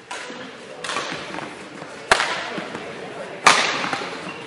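Badminton rackets striking a shuttlecock in a rally: three sharp hits about a second and a half apart, the last the loudest, each echoing in a sports hall.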